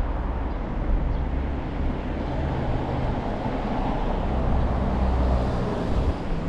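Street traffic noise: a vehicle passing, the steady rumble swelling toward a peak about five seconds in and then easing off.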